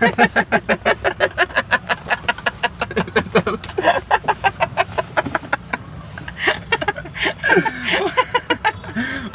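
Men laughing hard in a long, fast run of voiced 'ha-ha-ha' pulses, about six or seven a second, easing after about six seconds into looser laughter and bits of voice, over the low steady rumble of a car cabin.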